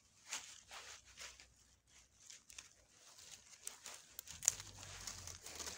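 Dry raspberry canes and dead leaves rustling as they are grabbed and pulled. A few sharp snips of hand pruning shears come in the second half, the loudest about four and a half seconds in.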